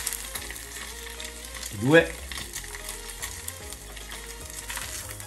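Salmon skin frying in hot seed oil in a small saucepan: a steady sizzle with light crackling.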